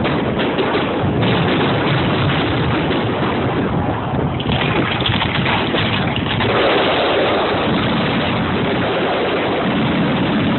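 Fireworks going off thick and fast, a continuous rumble and crackle of many bursts merging together with no single bang standing out.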